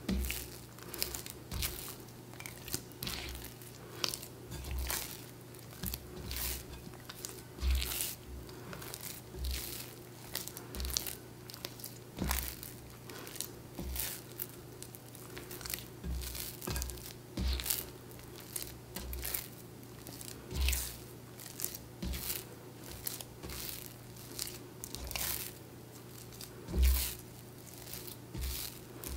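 Wet, sticky high-hydration sourdough dough being kneaded by hand in a mixing bowl, with a squelching, tearing sound about once a second and a dull thump on many strokes. The salt is being worked into the dough.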